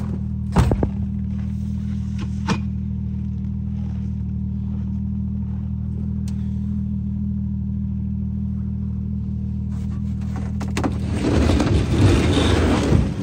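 A vehicle engine idling steadily, with two sharp knocks in the first three seconds. From about eleven seconds in there is a loud scraping rumble as the plastic freight sled is shoved across the pickup bed.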